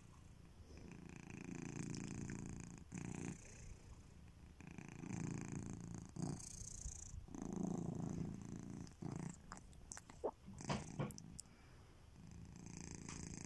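Sleeping domestic cat snoring, slow rhythmic breaths that swell and fade every couple of seconds. A few short sharp clicks come about ten seconds in.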